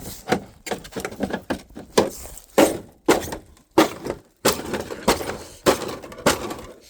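A refrigerator being smashed: a rapid series of hard blows, about two a second, with cracking and breaking of its plastic and glass parts.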